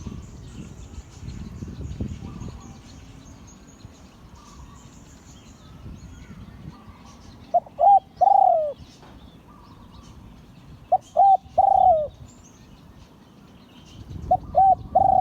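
Spotted dove cooing: three phrases, each two short coos and then a longer coo that drops in pitch at its end. Faint chirps of other small birds in the background.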